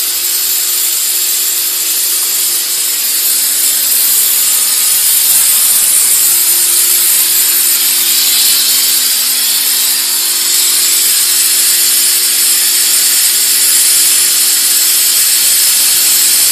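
Electric steam car-washing machine running, giving off a loud, steady hiss of steam over a faint steady machine hum.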